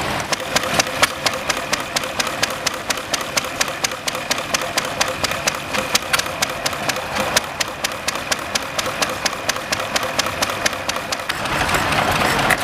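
Small vintage stationary engine running steadily and driving a water pump, with a regular, rapid ticking beat. Near the end a louder, hissier engine sound cuts in.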